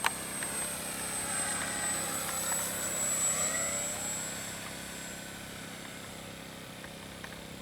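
Electric RC model plane (E-flite Cirrus SR22T) flying past, its brushless outrunner motor whining and three-blade propeller buzzing. The sound swells to a peak about three seconds in, then fades as the pitch drops.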